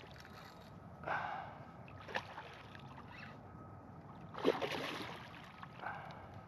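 Water splashing and sloshing beside a kayak in a few short bursts, with a sharp knock about two seconds in; the loudest splash comes about four and a half seconds in.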